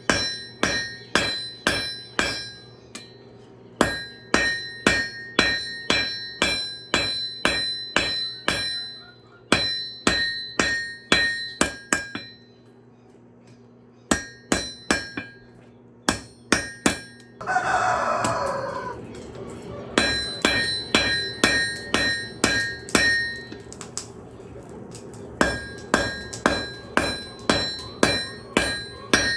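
Hammer blows on an anvil forging a railroad spike, in runs of quick ringing strikes about three a second with short pauses between runs. A rooster crows once, about seventeen seconds in.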